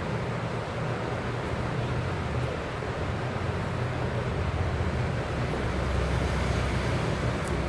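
Steady low background rumble with an even hiss, no clear taps or clicks.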